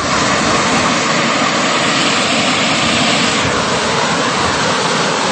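Fast, swollen river rushing through rapids: a loud, steady churning of water that starts suddenly at the cut.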